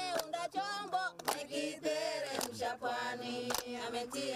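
A group of women singing together in a chant, several voices layered, with a few sharp strokes in between.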